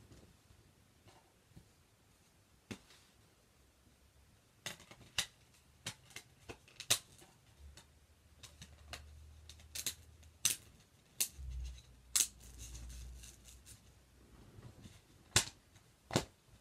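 Handling noise: scattered sharp clicks and taps of disc cases and packaging being handled. There are two stretches of low rumble in the second half.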